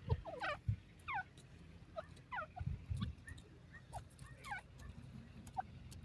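Grey francolin giving a dozen or so short, soft chirps that fall in pitch, spaced irregularly. A few faint low thuds come in between the chirps.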